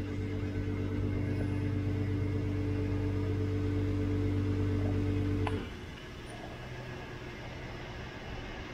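Petrol pump dispenser humming steadily while topping up a fuel tank to the brim, then cutting off with a faint click about five and a half seconds in.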